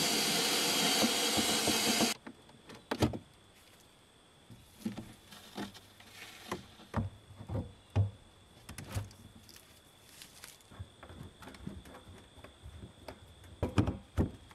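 Cordless drill running steadily with a motor whine for about two seconds, then stopping suddenly. Scattered light knocks and clunks follow as a white PVC drain pipe is handled and fitted against the plywood box.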